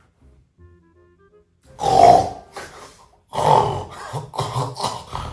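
A man's loud, exaggerated fake snoring. One long rasping snore comes about two seconds in, a second one follows, and then a quick run of short snorts and grunts.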